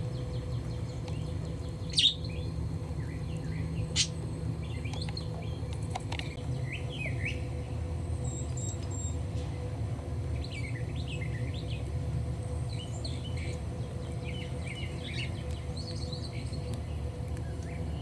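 Pet parrots (cockatiels and budgies) chirping softly in short, scattered calls over a steady low hum, with two sharp clicks about two and four seconds in.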